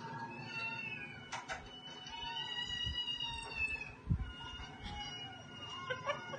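A domestic cat meowing in several drawn-out calls, the longest lasting about two seconds near the middle.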